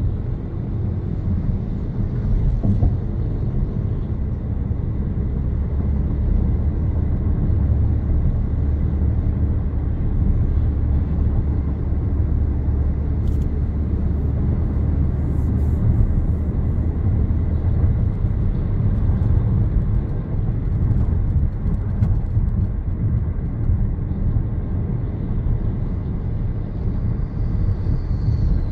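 Steady low rumble of a car driving along a road, engine and tyre noise. It is heaviest in the deepest range for the first two-thirds and eases slightly after that.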